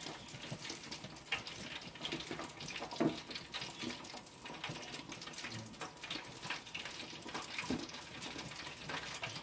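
Hot oil in a Farberware 4-liter electric deep fryer bubbling and crackling around chicken freshly lowered in, muffled by the closed lid: a steady dense crackle with a few louder pops.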